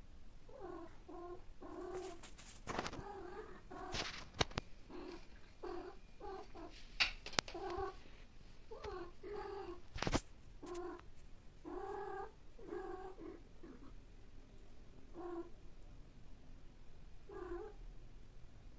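Cats mating: a cat gives short, low, repeated yowling calls, one or two a second, thinning out toward the end to single calls, with a few sharp clicks in between.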